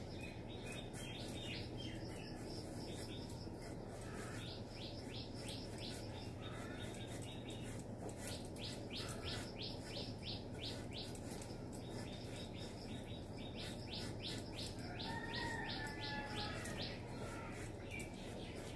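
Birds chirping in short, rapid trills that come in bursts every few seconds, with a longer whistled call about fifteen seconds in, over a steady low hum.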